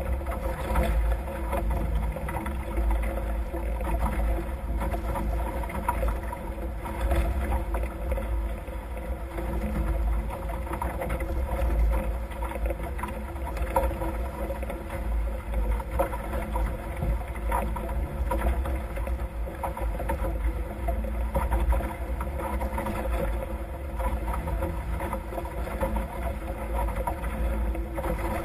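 Nacra F18 catamaran sailing fast: water rushing and spraying along the hulls, with wind buffeting the microphone as a steady low rumble.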